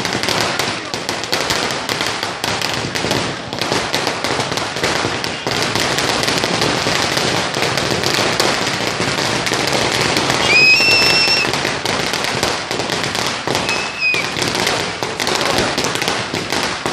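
A long string of firecrackers bursting on the street in rapid, unbroken succession, a dense crackle of bangs. A high steady tone sounds for about a second around ten seconds in, and briefly again a few seconds later.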